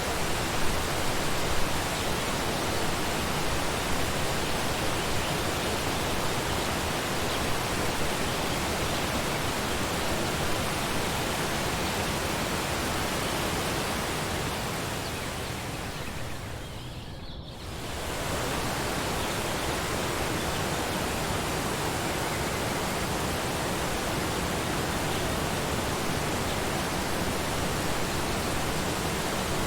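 Waterfall rushing steadily. About two-thirds of the way through, the sound briefly fades down and swells back up.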